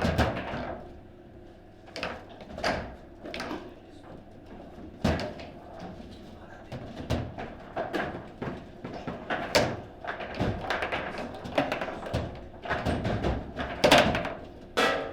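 Table football rally: the ball struck by the rod figures and knocking off the table's walls, in an irregular string of sharp knocks and thuds, the loudest near the end.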